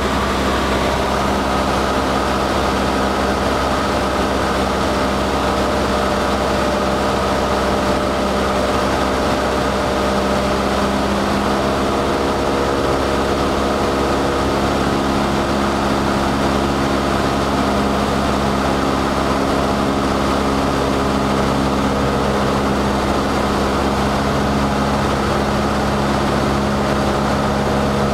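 Cessna 152's four-cylinder Lycoming O-235 engine and propeller droning steadily, heard from inside the cockpit in flight.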